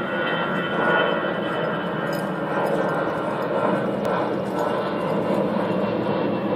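Airplane engine noise: a steady rushing drone with a faint whine.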